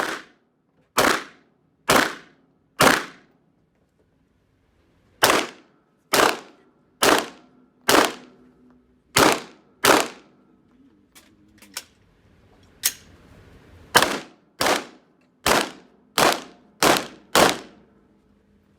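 Glock 17 9 mm pistol fired about seventeen times in three strings of roughly one shot a second, with two pauses between strings and faint clicks during the second.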